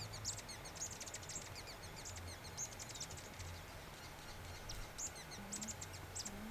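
Male Peruvian Sheartail hummingbird in its shuttle display, giving faint, high, thin chirping notes in short quick clusters several times.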